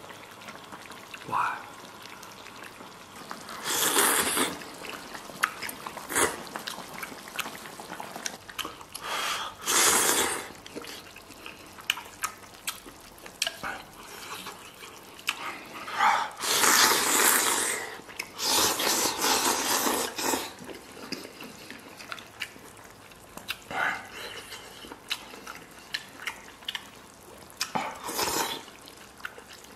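Eating hot, sauce-soaked hot pot meat with chopsticks: a series of loud, wet slurps a few seconds apart, with a longer stretch of slurping about halfway through.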